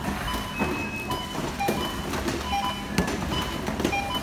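Supermarket checkout: barcode scanners beeping again and again at a few different pitches, short beeps every half second or so, over the general din of the store with a few knocks of goods on the belt.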